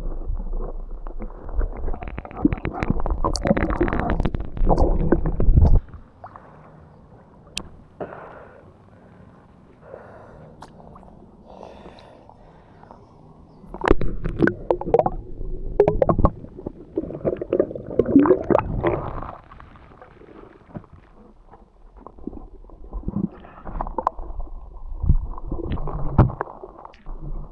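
Muffled underwater water noise, gurgling and sloshing around a submerged camera, coming in spells of a few seconds with quieter stretches between.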